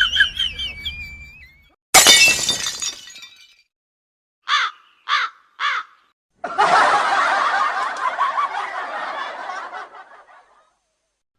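A string of separate comic sound effects: a sharp crash like something breaking, dying away over about a second; then three short chirps, each falling in pitch, about half a second apart; then a noisy clamour of many wavering voices lasting about four seconds.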